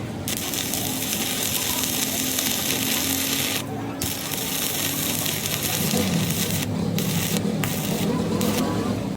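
Loud steady hiss that cuts off and starts again several times, with a low steady hum underneath.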